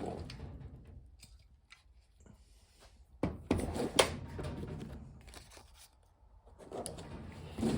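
Handling noise from an AK-47 style rifle being turned around: rustling and scraping with sharp clicks, the loudest about four seconds in, and another burst of rubbing near the end.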